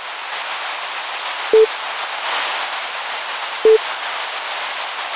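Countdown sound effect of old-TV static: a steady hiss of white noise with two short, loud beeps about two seconds apart, one for each number counted down.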